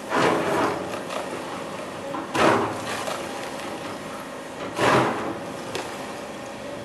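Hydraulic excavator's bucket breaking into a large packed-snow sculpture: three short scraping, crunching bursts about two and a half seconds apart, over the machine's steady running hum.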